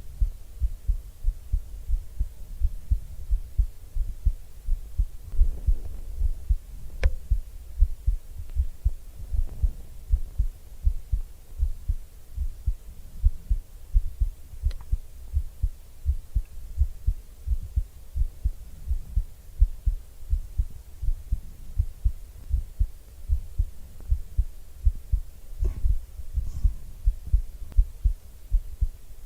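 A person's heartbeat heard close-miked for ASMR: a steady, even rhythm of soft low thumps, with a few faint clicks over it.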